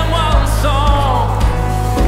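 Worship band playing a song with a singer's voice carrying the melody over a steady bass and drum beat.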